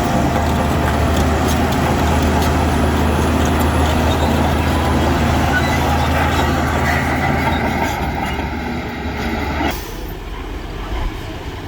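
Heavy diesel construction machinery running steadily, with a broad rushing noise over the engine that cuts off suddenly about ten seconds in while the engine carries on.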